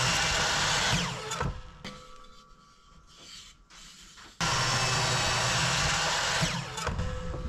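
Electric mitre saw cutting wood twice. The motor runs at full speed and is released about a second in, winding down with a falling whine. It starts suddenly again about four and a half seconds in for a second cut and winds down near the end.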